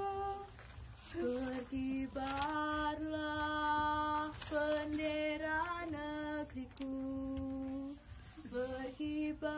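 Girls singing a melody unaccompanied: a run of long, held notes with short breaks between them, starting about a second in.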